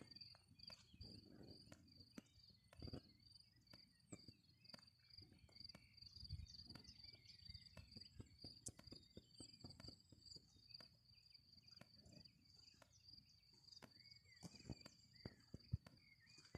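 Faint, steady high-pitched trill of an insect, running on without a break, with scattered light clicks and a few brief high chirps over it.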